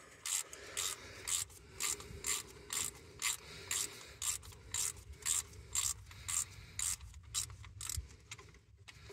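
Hand ratchet clicking about twice a second as it is worked back and forth, turning a screw extractor; the clicking stops near the end.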